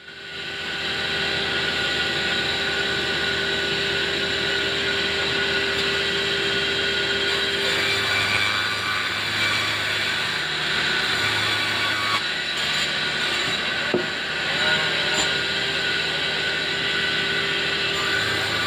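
Large log band sawmill running steadily, its blade ripping lengthwise through a log: an even, unbroken sawing noise with a steady whine over it.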